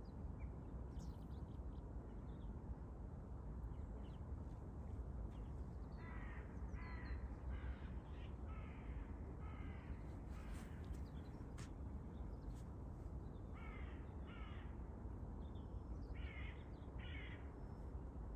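A crow cawing: a run of five caws about a second apart, then two more pairs of caws near the end, over a steady low rumble.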